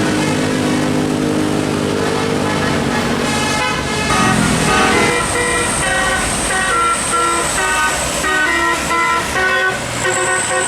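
Bus telolet musical air horn: low held tones for about four seconds, then a fast tune of short notes stepping up and down in pitch.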